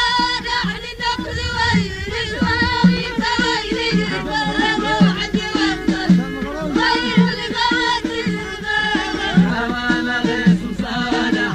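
Moroccan Amazigh folk song: a wavering melodic line over a steady hand-drum beat.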